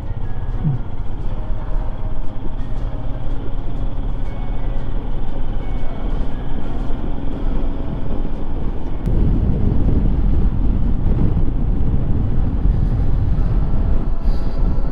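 Royal Enfield Himalayan's 411 cc single-cylinder engine running at road speed, with wind rushing over the helmet microphone; the wind noise grows louder and rougher about nine seconds in.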